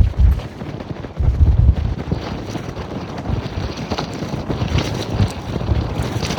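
Strong storm wind buffeting the microphone in heavy gusts. The loudest gust comes about a second in, then it settles into a steadier rush of wind.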